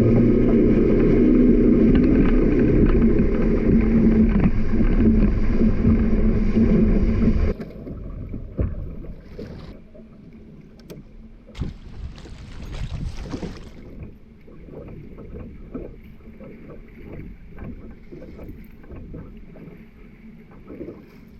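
Boat motor running steadily, then cutting off suddenly about seven seconds in, followed by faint scattered clicks and knocks and a brief hiss.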